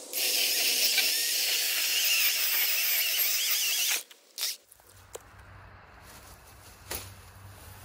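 DeWalt 12-inch cordless electric chainsaw running at full speed with its chain cutting into a log, a steady high whine and hiss. It stops sharply about four seconds in, followed by one short second burst, and then only faint handling clicks.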